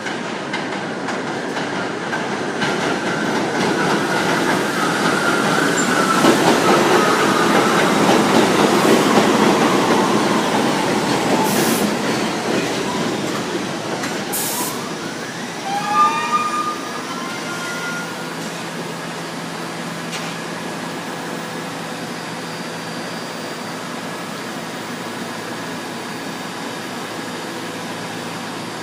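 New York City subway train pulling into an elevated station: a rising rumble of wheels on rail with a motor whine falling in pitch as it slows. After a short squeal about halfway through, the train stands at the platform with a steady hum.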